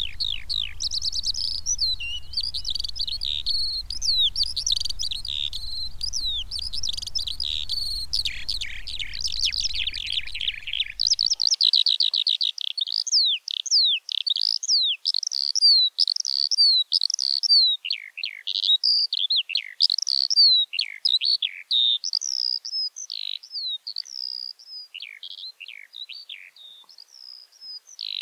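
Eurasian skylark singing its long, unbroken song: a fast, rapid warble of trills and short gliding whistles with no pauses. A low rumble underlies the song and stops abruptly about a third of the way in, leaving the song alone.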